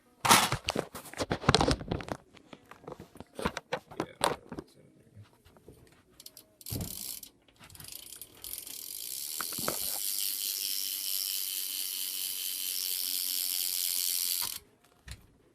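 A BMX rear hub ratcheting as the rear wheel freewheels: some clicks and knocks while the wheel is handled and spun, then from about halfway a steady, fast, high-pitched buzz of the pawls for about six seconds, cutting off suddenly near the end. The hub is degreased and pretty loud.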